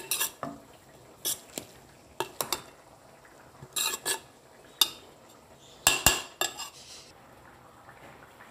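A spatula stirs flattened rice (aval) in a metal pot, scraping and knocking against the pot in irregular strokes. The loudest clatter comes about six seconds in, and it goes quieter after about seven seconds.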